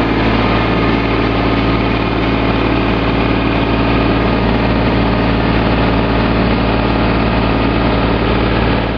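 Ford compact tractor's engine running steadily at a low, even speed, heard from the operator's seat.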